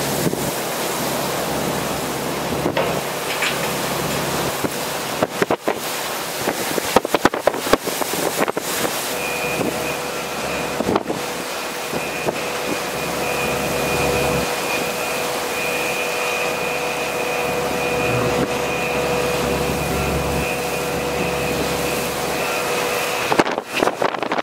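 Hurricane wind and driving rain, with gusts buffeting the microphone about five to nine seconds in. From about nine seconds in, a steady high whine runs under the storm noise until near the end.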